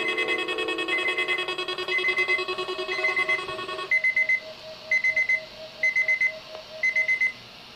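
Electronic alarm beeping from a weather alert radio set off by a required monthly test. A high beep repeats about once a second. In the first half a steady multi-note tone sounds alongside it and cuts off about four seconds in, and quicker, lower short pips stop near the end.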